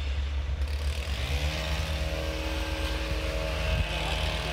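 Diesel locomotive engine winding up in pitch about a second in, then holding a steady note under power as the locomotive convoy approaches, over a constant low rumble.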